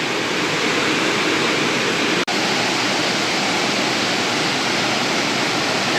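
Small forest waterfall rushing steadily, water falling and splashing onto rock, with a momentary dropout a little past two seconds in.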